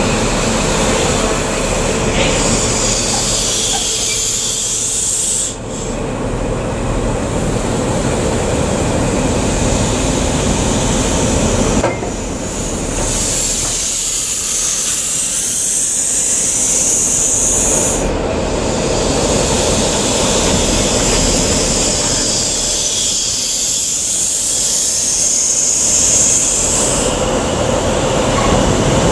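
Train running on the rails: a steady rumble with hiss and a faint steady hum, the sound changing abruptly a few times.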